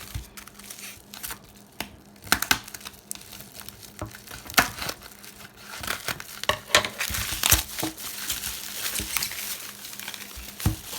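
Plastic packaging crinkling and tearing in a run of sharp crackles as a slime container is unwrapped and opened.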